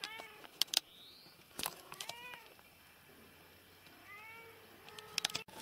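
A kitten meowing three times in short calls that rise and fall in pitch, with a few sharp clicks in between.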